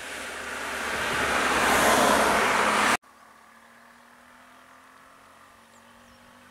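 A van driving past close by: a rush of tyre and engine noise that swells louder, then cuts off abruptly about three seconds in. After that only a faint, steady low engine hum remains.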